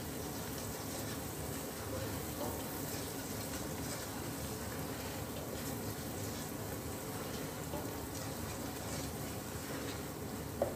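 Chopped onions frying in desi ghee in a stainless steel pot, a steady sizzle as a spoon stirs and scrapes through them. One short sharp click near the end.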